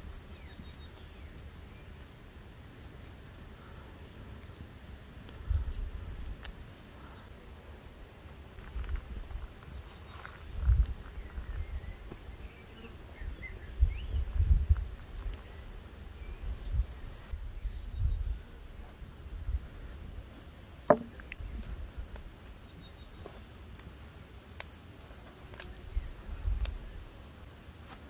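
An insect chirping in a steady, fast, pulsed high trill, like a cricket's, with now and then a low rumble underneath.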